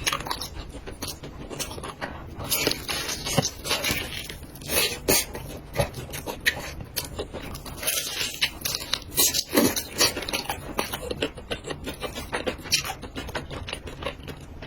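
A person eating jajangmyeon and chicken close to the microphone: irregular wet chewing and mouth sounds, with many small clicks and scrapes.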